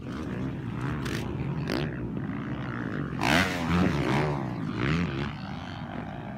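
Motocross bike engines revving, their pitch rising and falling, busiest about three to four seconds in.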